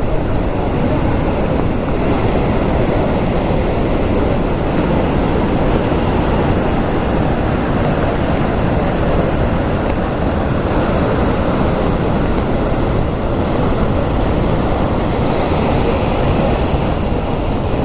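Steady, loud roar of a large waterfall's falling water.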